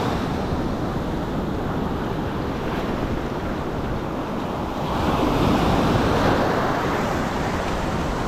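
Ocean surf breaking and washing up the shore, with wind buffeting the microphone; a wave surges louder about five seconds in.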